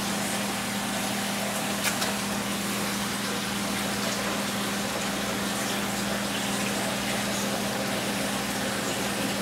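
Aquarium water pump running: a steady low hum under a constant rush of water, with one brief click about two seconds in.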